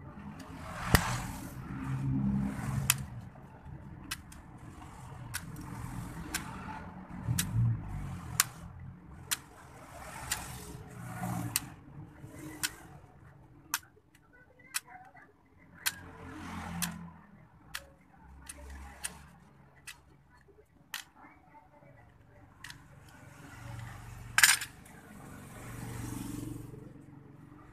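Utility knife blade cutting and snapping through a plastic syringe barrel against a wooden block: a series of sharp clicks, roughly one a second, with a louder scraping crack about three-quarters of the way through. A low rumble swells and fades in the background.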